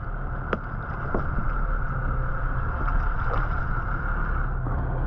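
Boat engine running at idle with a steady low drone, under wind and water noise, and a few light knocks as the gaffed tuna is hauled aboard.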